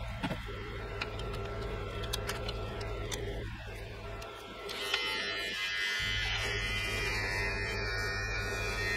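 Braun BT5265 electric beard trimmer running with a steady buzz. About five seconds in, the sound gets louder and brighter as the blades are put to the hair on the head and start cutting.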